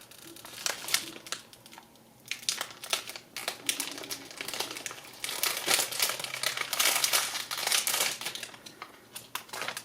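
Blind-box packaging being torn open and unwrapped by hand: dense crinkling and crackling of the wrapping, sparse for the first couple of seconds, then thick and continuous until near the end.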